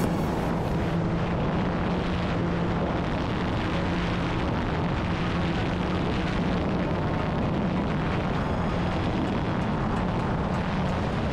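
Steady roar of freefall wind rushing over a handheld camera's microphone during a tandem skydive, with a low steady hum underneath.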